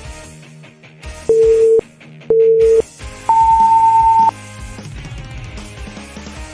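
Race start countdown beeps: two short low beeps about a second apart, then one longer beep an octave higher, over upbeat background music.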